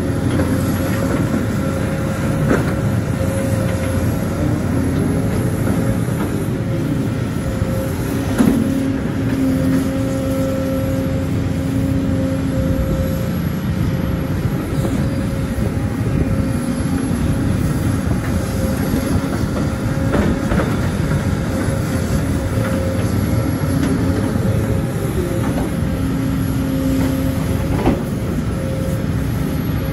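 Sumitomo hydraulic excavator working: its diesel engine runs steadily under load, with a whine that comes and goes and rises and falls as the hydraulics work. A few sharp knocks are heard.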